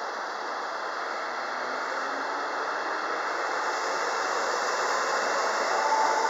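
Keio Line electric commuter train running along the platform: a steady rushing noise that slowly grows louder, with a thin rising whine starting near the end.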